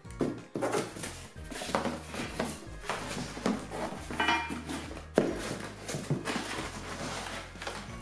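Cardboard packaging rustling and scraping, with irregular knocks and clinks of metal bike rack brackets being lifted out of the box, the loudest knock about five seconds in. Background music with a steady bass line runs underneath.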